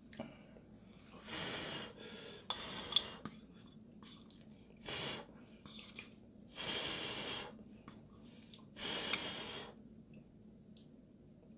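A person slurping instant ramyun noodles in about five separate slurps, each a hissy rush of air lasting half a second to a second, with a couple of sharp clicks like chopsticks on the bowl about three seconds in.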